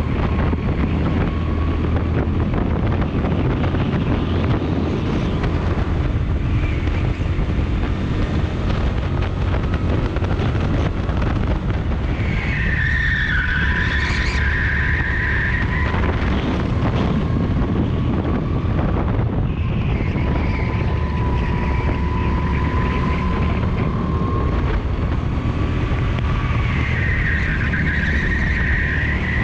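Rental kart engine running steadily at racing speed, heard from on board, with the tyres squealing through a corner about twelve to sixteen seconds in and again near the end.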